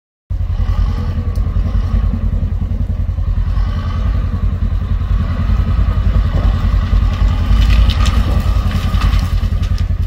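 200 hp crawler bulldozer's diesel engine running steadily as the machine pushes along a brushy trail, a rapid low pulsing throughout. A few short clanks or cracks come about eight seconds in.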